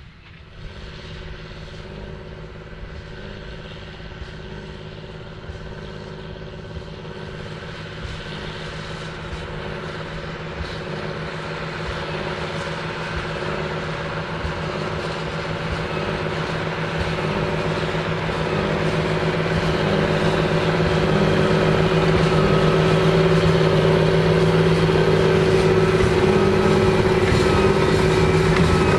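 John Deere 8530 tractor's engine running steadily under load while it pulls a Krone BigPack 1290 HDP HighSpeed large square baler, over the baler's rapid mechanical clatter. The sound grows steadily louder for about twenty seconds, then holds level.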